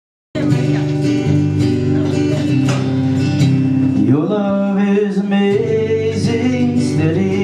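Live worship band playing a song on guitars and keyboard, cutting in abruptly just after the start. A voice begins singing about halfway through.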